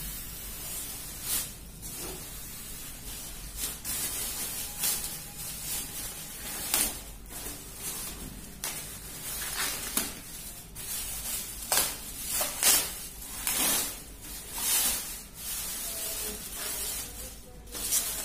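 Clear plastic bag crinkling and rustling in uneven swishes as it is pulled off a mid-tower PC case.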